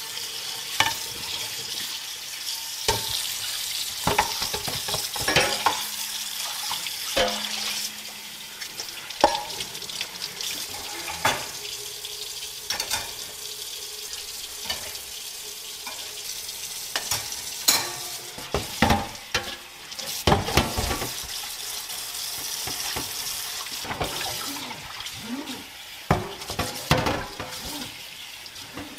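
Kitchen sink work: tap water running into a sink, with frequent clinks and knocks of dishes and utensils.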